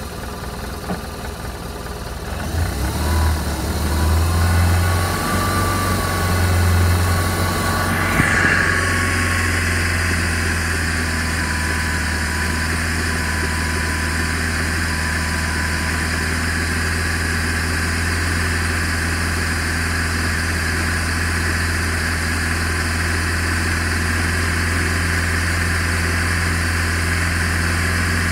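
BMW R1200RT's boxer-twin engine running in second gear, throttled up over the first several seconds and then held at a steady speed.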